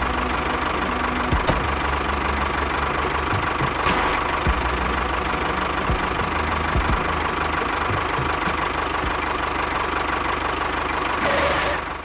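Tractor engine running steadily with a low, even pulse, fading out just before the end.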